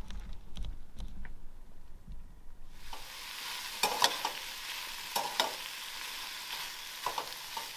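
Sliced chicken sausage sizzling in a steel frying pan on a two-burner camp stove, a steady hiss, with a metal spatula scraping and stirring it in short strokes several times. The sizzle starts about three seconds in, after a stretch of low rumble and light clicks.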